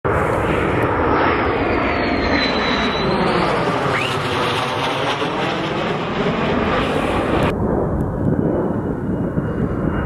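F-15E Strike Eagle's twin jet engines on landing approach overhead: a loud, steady jet rumble with a sweeping phasing to it and a high whistle above that dips in pitch and rises again. About seven and a half seconds in, the sound cuts abruptly to a duller rumble with a steady, lower whistle.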